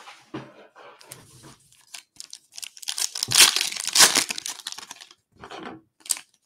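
Foil wrapper of a basketball trading-card pack being torn open by hand and crinkling, loudest about three to four seconds in, with a few short crackles near the end as the cards are pulled out.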